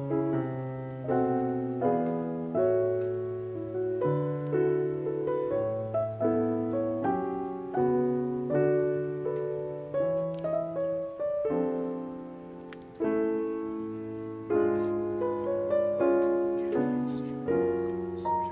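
Background piano music: a gentle melody of single struck notes over slower bass notes, each note fading after it is played.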